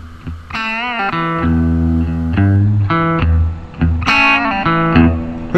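Background music: the guitar intro of a blues song, guitar phrases with bent notes over a bass line.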